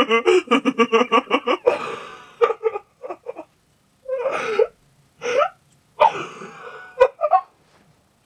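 A person laughing hard in quick pulsing bursts for the first couple of seconds. It then breaks into a string of breathless gasps and squeaky catches of breath, and goes quiet near the end.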